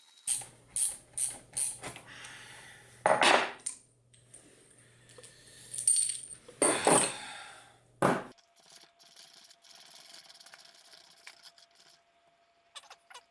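Metal-on-metal clinking and knocking from hand tools and steel gearbox parts during disassembly of the sawmill gearbox: four quick taps, then several louder clattering bursts, and then it goes quieter.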